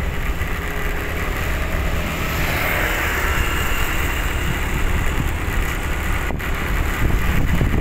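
Steady rush of wind and road noise from a vehicle riding along a road, with a deep rumble that grows a little louder near the end.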